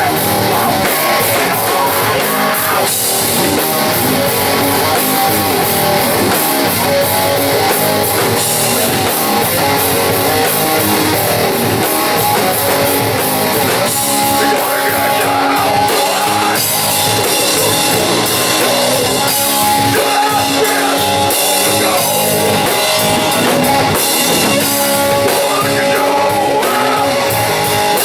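Live rock band playing loud, with distorted electric guitar, drum kit and a singer.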